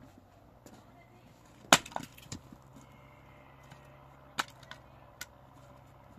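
Sharp wooden knocks and cracks, irregular. The loudest comes about two seconds in with two quick follow-ups, and three weaker ones come later.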